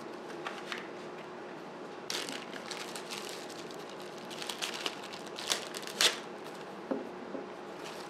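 Clear plastic bag crinkling and rustling in irregular bursts as it is handled and opened, with a sharp click about six seconds in. Near the end come two dull knocks as a block of stabilized wood is set down on the wooden workbench.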